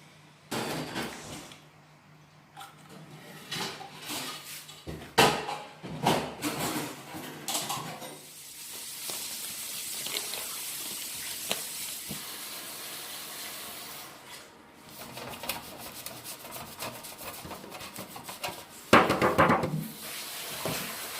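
Kitchen clatter: dishes and utensils knocking and clattering, with a steady hiss for several seconds in the middle and a loud clatter near the end.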